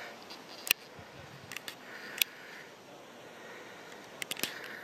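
Quiet outdoor background with a few scattered sharp clicks, several of them close together near the end.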